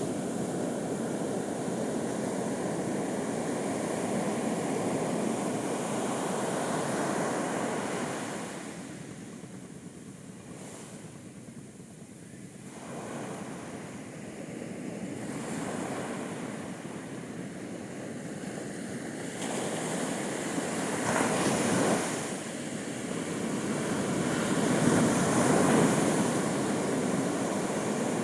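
Ocean waves breaking on a beach: a continuous wash of surf that eases off about a third of the way in, then builds again, with the biggest waves crashing near the end.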